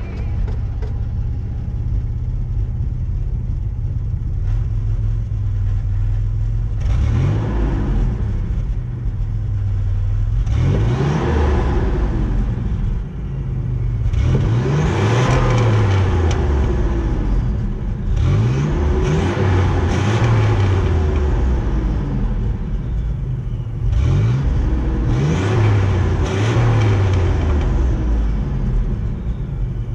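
Nissan 300ZX Z31's V6 running at idle through its exhaust, then revved in a series of throttle blips every few seconds, each rising in pitch and falling back to idle.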